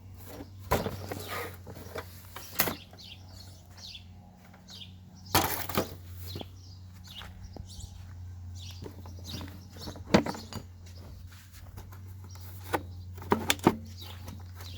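Scattered clicks and knocks of hands and tools working on a scooter's engine parts, over a steady low hum.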